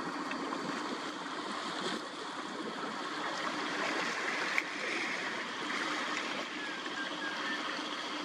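Steady rushing outdoor background noise, like wind or distant water, with a faint steady hum. A single sharp click comes about four and a half seconds in.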